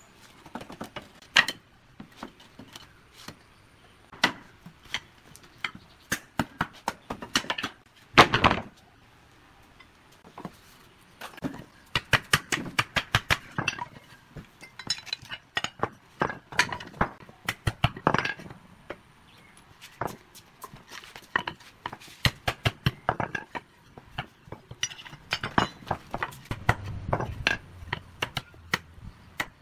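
Claw hammer knocking and prying rusty nails out of old wooden cable-spool boards: quick runs of light metallic taps and clinks with pauses between, and a few harder knocks, the loudest about eight seconds in.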